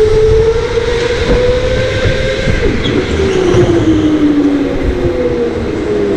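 Electric go-kart motors whining as the karts race, heard from the driver's seat over a low rumble. One high whine holds fairly steady, while a second one slides down in pitch around the middle as a kart slows into the corner.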